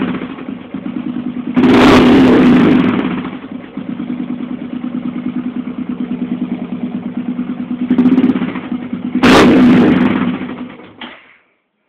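Yamaha XT600's single-cylinder four-stroke engine breathing through an aftermarket Tenax exhaust, idling with a loud, even beat and blipped sharply on the throttle twice, with a smaller blip just before the second. It is switched off near the end and dies away.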